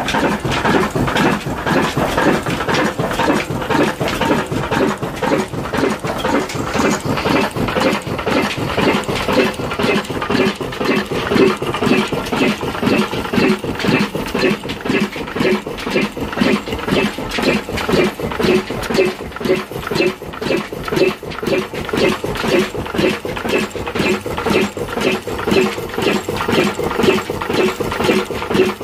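Old stationary diesel 'black engine' with a heavy flywheel running steadily, its firing strokes beating at an even, regular rhythm.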